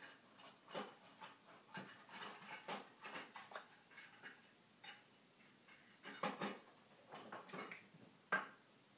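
Irregular clinks and clatters of metal kitchenware being handled at a saucepan, with the sharpest knock near the end.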